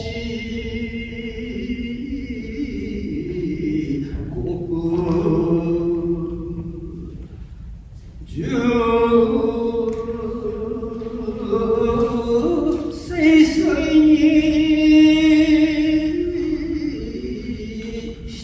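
Shigin chanting of a classical poem: a voice intoning long, drawn-out notes that shift slowly in pitch, with a wavering vibrato on the held notes. The chant breaks off briefly about eight seconds in.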